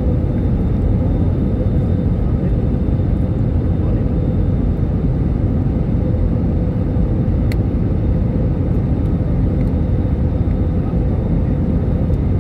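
Steady low roar of an airliner's jet engines and rushing air, heard from inside the passenger cabin, with a faint steady hum over it. A light click sounds once a little past halfway.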